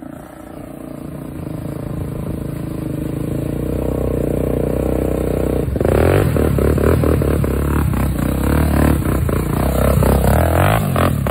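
Off-road motorcycle or quad engine running and revving, growing steadily louder over the first six seconds. It then runs louder still, with rapid knocks and clatter over it.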